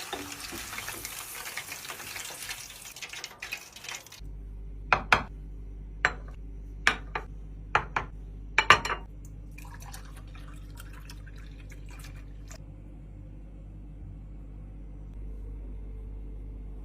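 Kitchen food preparation: a wet stirring noise for about four seconds stops abruptly, and a low steady hum takes over. Then come about eight sharp clinks of a utensil against a dish, followed by faint scraping.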